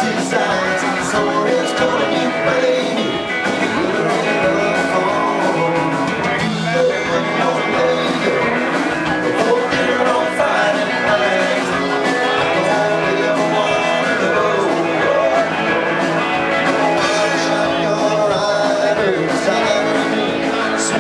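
Live country-rock band playing a song on electric guitar, bass guitar and drums, amplified and loud.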